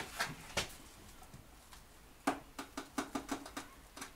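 Light clicks and knocks of tools and parts in a car's engine bay while a VR6 engine is being lined up on its mounts. A couple of single knocks, then a quick run of about ten between two and four seconds in.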